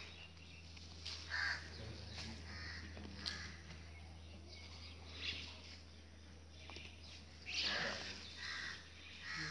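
A crow cawing repeatedly, a few short calls spaced a second or more apart, the loudest about two seconds before the end.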